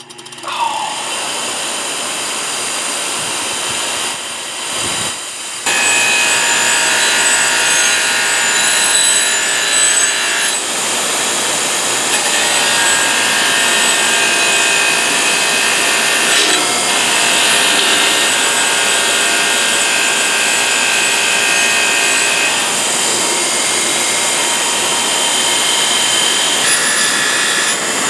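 Delta bench grinder running with a wire wheel brush scraping heavy rust off an old axe head, a steady harsh scraping over the motor's whine. It steps up louder about five and a half seconds in, as the steel is pressed harder against the wheel.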